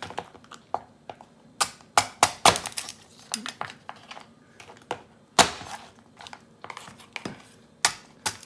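Cleaver chopping and cracking king crab legs on a wooden cutting board: a run of sharp, irregular knocks and shell cracks, the loudest about five seconds in.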